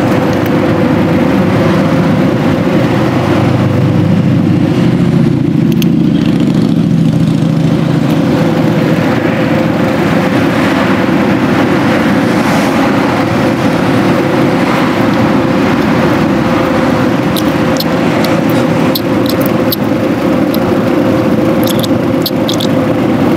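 Steady drone of a running machine with a constant hum, unchanging in pitch. A few faint light clicks come near the end.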